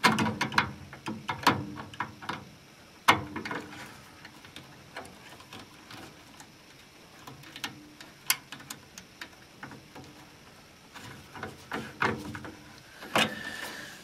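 Scattered clicks and taps of a screwdriver and wires against a furnace control board's terminals and the sheet-metal cabinet, from wiring up the new board. The loudest knocks come at the start and about three seconds in.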